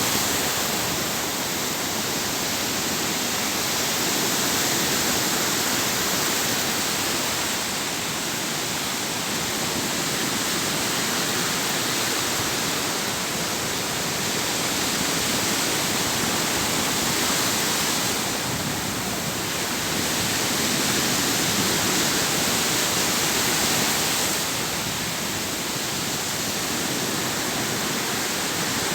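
Sea waves breaking and washing ashore: a continuous hiss of surf that swells and eases every several seconds.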